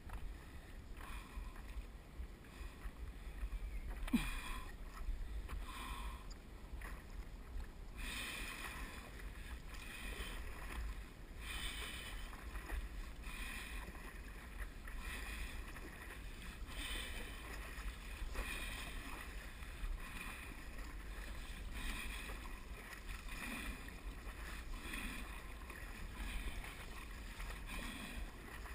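Stand-up paddle strokes pulling through seawater, a splash about every one and a half seconds once the paddling settles into rhythm after a few seconds, with water washing along the board and a low wind rumble on the microphone. A single sharp knock about four seconds in.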